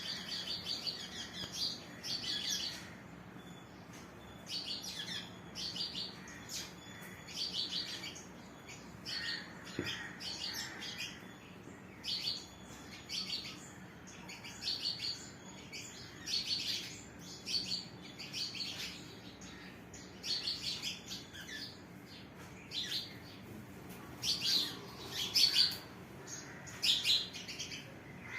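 Small birds chirping in short, rapid bursts of high notes, repeating every second or two.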